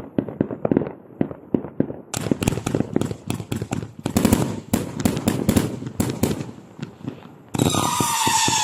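Firework cake firing shot after shot in rapid succession: softer pops for the first two seconds, then louder, sharper cracks. Near the end a whistling tone, falling slightly in pitch, comes in under the shots.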